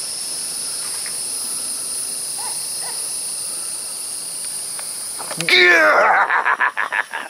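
Steady high buzzing of insects. About five and a half seconds in, a loud burst of rapid fluttering beats with falling sweeps takes over for under two seconds.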